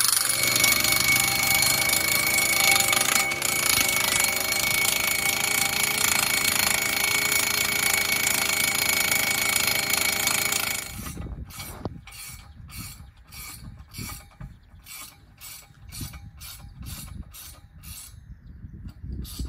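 Engine-driven post driver running and hammering a steel fence post, cutting off suddenly about eleven seconds in. After it, a run of sharp, regular clicks, about two a second.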